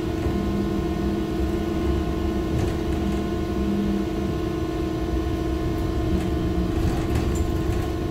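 Cabin noise of a 2015 Ursus T70116 electric trolleybus in motion: a low rolling rumble with a steady hum over it.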